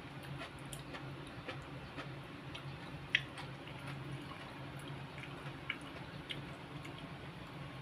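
Small wet clicks and smacks of eating by hand: chewing, and fingers mixing rice with sauced sweet potato leaves on a ceramic plate, with one sharper click about three seconds in. A steady low hum runs underneath.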